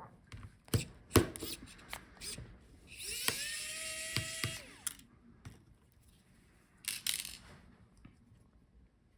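Small electric screwdriver running for a second or two, its pitch rising as it spins up, backing out small laptop motherboard screws. Sharp clicks of screws and tools being handled come before it, and another short burst follows near the end.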